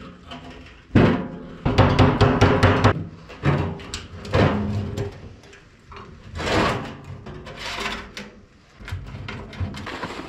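Sheet-metal stovepipe being fitted into the collar on the lid of a 55-gallon steel drum: loud metal clanks and scrapes starting about a second in and coming in several bursts, with the drum ringing.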